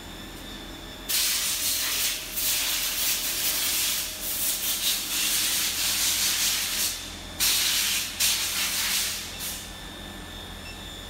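Induction heating machine running with a faint steady high whine and hum, while a heated bar glows in its coil. A loud hiss starts about a second in and comes and goes in bursts, breaking off briefly twice, then stops near the end.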